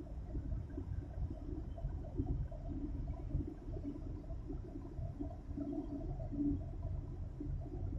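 Low, uneven rumble with a wavering hum from a large cargo ship under way close by.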